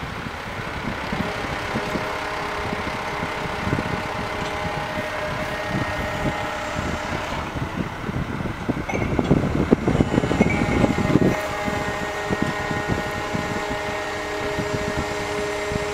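Heavy machinery running with a steady engine-like hum and irregular clattering. The clatter grows louder for a couple of seconds near the middle.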